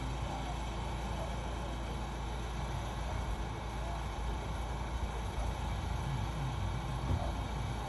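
Steady low background rumble with an even hiss, like distant traffic, and a faint knock near the end.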